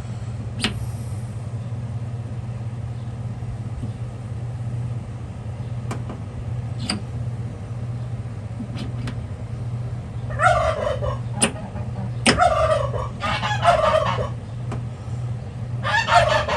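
Turkeys gobbling in several short rattling bursts in the second half, over a steady low hum. Before the gobbling come a few light clicks.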